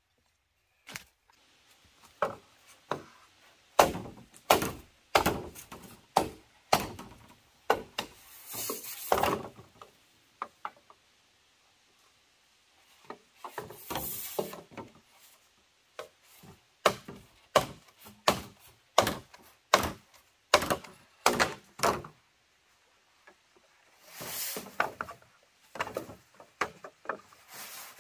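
Wood being chopped by hand: a long run of sharp, irregular blows, roughly one every half second to second, broken by a few longer scraping sounds and two short pauses.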